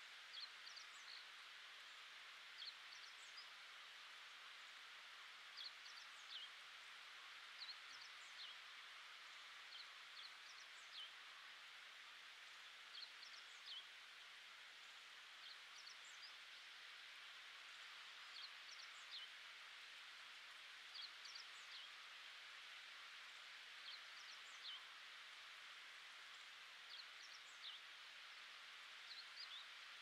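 Faint natural ambience: a steady soft hiss, with small birds giving short high chirps every second or two.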